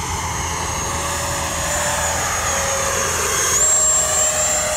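Whine of an FMS Futura 80mm electric ducted-fan jet flying by at part throttle in slow, nose-high flight, growing louder. About three and a half seconds in, the pitch steps up as the throttle is advanced.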